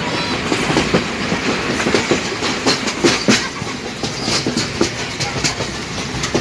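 Passenger train running at speed, heard from inside a carriage at an open window: a steady rolling rumble with a dense run of irregular clicks and knocks from the wheels and the carriage.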